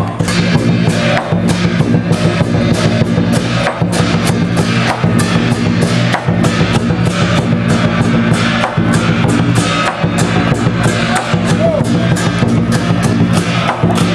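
Drum-driven music with a fast, steady beat, about three to four strikes a second, over a sustained low pitched backing.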